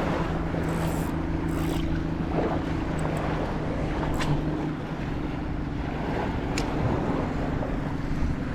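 Sea waves washing on the shore with wind buffeting the microphone, under a steady low engine hum from a boat. A few short, sharp clicks sound about a third, half and three quarters of the way through.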